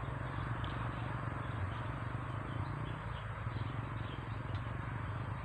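Insects and birds chirping faintly over a steady low hum.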